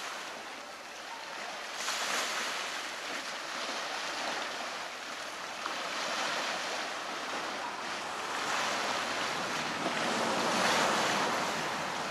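Small waves washing onto a rocky shore, swelling every few seconds, with wind blowing over the microphone.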